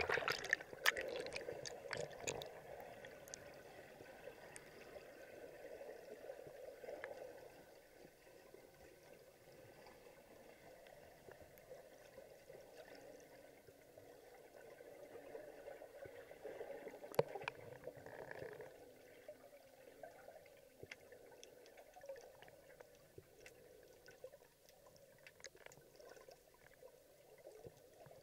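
Muffled underwater sound of water moving around a submerged camera as a swimmer moves through it: splashing that dies away over the first couple of seconds, then faint bubbling and water noise with scattered small clicks, one sharper click about seventeen seconds in.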